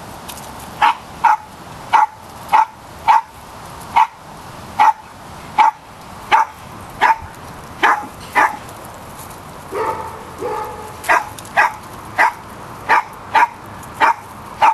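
A small dog barking repeatedly: about twenty sharp, high barks, one or two a second, starting about a second in, with a short break for a softer sound near the middle. The dog is fussing, barking at something.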